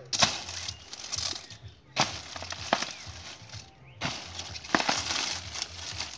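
Stiff, dry leaves of a motate (wild bromeliad) thicket rustling and crackling as the plants are forced apart, with about five sharp cracks as leaves snap or are struck.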